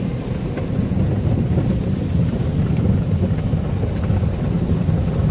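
Automatic car wash working over the car, heard from inside the cabin: a steady rumble of spinning brushes and spraying water on the bodywork.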